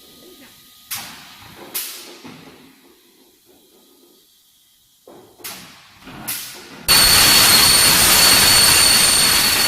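Machinery of a line that forms steel trailer side-board profiles: several short, sharp hisses that fade quickly. About seven seconds in, a loud steady hiss with a high whistling tone starts suddenly and keeps going.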